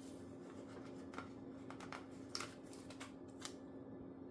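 Faint rustling and light taps of sticker sheets and planner paper being handled, a few separate short sounds, over a steady low hum.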